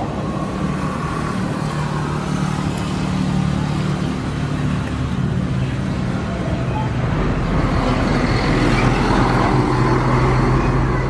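Motor vehicle engine running with a steady low hum over road noise; the hum drops slightly in pitch about seven seconds in.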